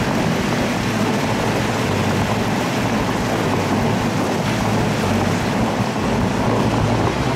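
Steady rushing noise with an uneven low buffeting, typical of wind on the microphone, mixed with the splashing of small plaza fountains.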